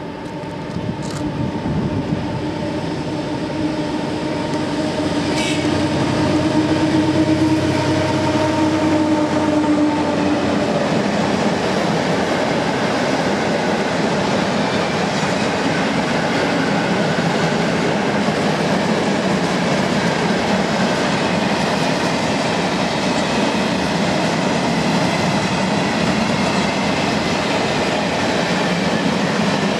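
A diesel locomotive hauling a freight train passes close by, its engine drone heard for about the first ten seconds as it draws near. Then comes the steady rumble and clickety-clack of a long string of open freight wagons rolling past on the track.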